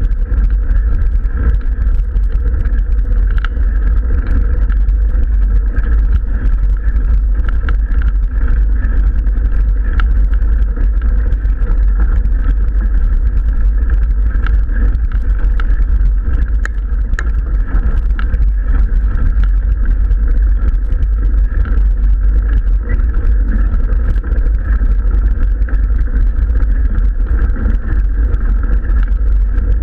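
Steady low wind rumble on an action camera's microphone during a mountain bike climb, with tyres crunching on a gravel road and many small clicks and rattles from the bike.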